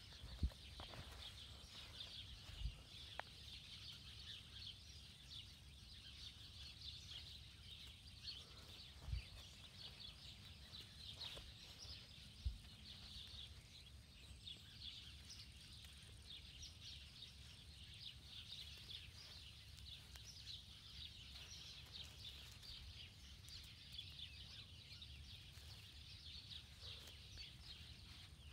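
Faint outdoor background of a steady high-pitched chirping chorus, with a few brief soft low thumps.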